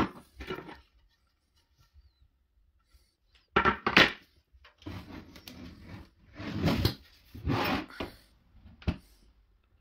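Wooden cot panels being handled on a wooden floor: a few sharp knocks and clacks, with stretches of scraping and shuffling as boards are moved, and a last sharp knock near the end.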